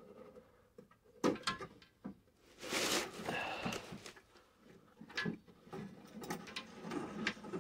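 The metal television chassis knocking and scraping against the wooden console cabinet as it is wrestled loose: a sharp knock about a second in, a scraping slide around three seconds in, then more knocks and rattles.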